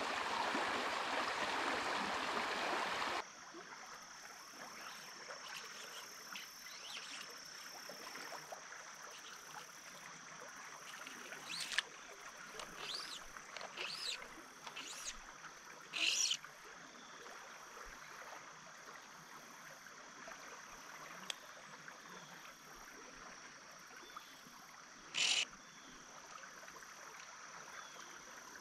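Stream water rushing over a riffle, which cuts off about three seconds in to a calmer stretch of the stream. Faint flowing water continues there under a steady high insect buzz, with a few short, high chirps, the loudest about 16 and 25 seconds in.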